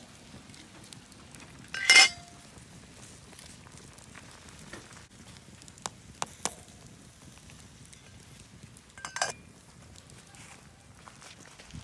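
Titanium canteen cup lid clattering off the cup about two seconds in, a few light taps of a spork stirring the boiling ramen noodles, and the lid clattering back on a little after nine seconds. Under it, a steady low sizzle and crackle from the pot and campfire.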